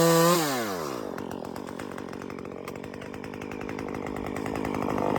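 Chainsaw held at high revs, then let off the throttle about half a second in, its pitch falling as it winds down to a steady idle.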